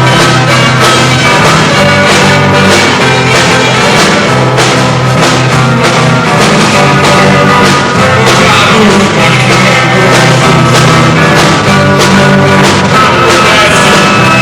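Live rock band playing loudly: electric guitars, bass and drums in a steady beat, recorded in the room.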